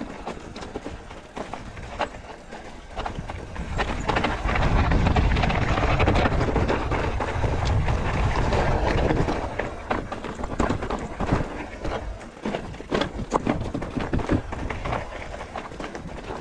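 Mountain bike rolling down a dry dirt trail: tyres crunching over leaves and loose stones, with many sharp clicks and knocks as the bike rattles over bumps. Wind rumbles heavily on the microphone from about four to ten seconds in.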